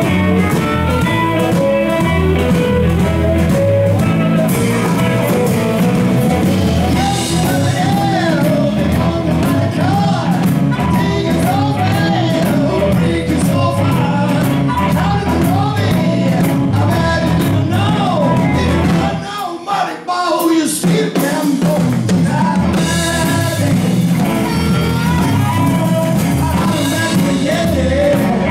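Live blues-rock band playing: electric guitar, electric bass, drum kit and amplified harmonica, with singing. About nineteen seconds in the bass and drums stop for a couple of seconds, then the full band comes back in.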